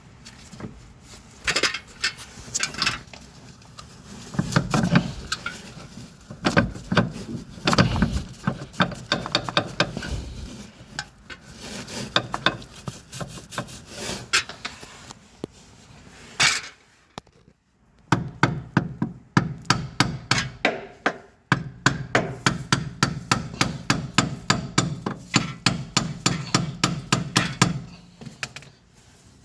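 Hand tools at work on a coilover's mounting hardware: irregular sharp metal knocks and clicks, then in the second half a long, even run of strikes or ratchet clicks, about three a second, broken by one short pause.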